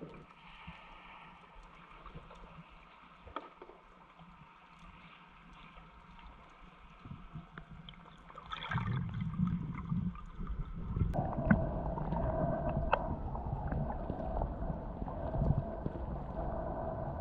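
Underwater sound through the camera: a faint hiss with a few clicks, then a short rush of exhaled bubbles a little before nine seconds in. After that comes a louder low rumble, and from about eleven seconds a steady hum, with a few sharp clicks.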